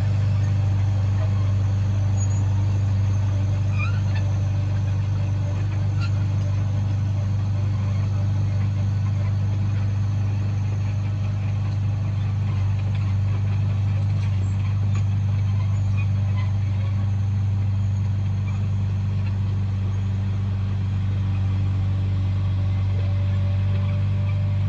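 Komatsu bulldozer's diesel engine running steadily, a deep, even hum with no change in pitch or load.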